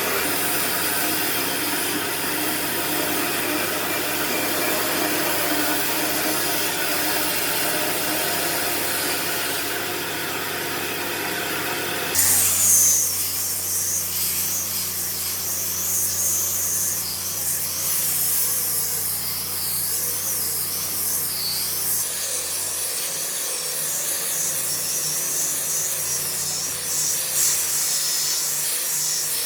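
A power tool working on wood, running steadily. About twelve seconds in the sound changes abruptly to a hissier, higher noise over a steady low hum.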